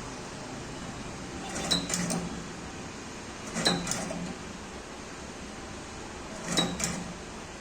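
Battery spot welder firing three welds, roughly two to three seconds apart. Each weld is a sharp double snap with a brief low hum under it.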